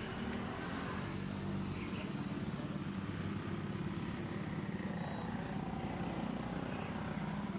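An engine running steadily, a continuous low drone.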